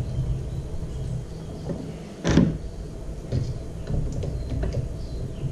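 Screwdriver working at the plastic housing of a Mosquito Magnet Patriot Plus power head: scattered clicks and scrapes with a low handling rumble, and one sharp knock about two seconds in.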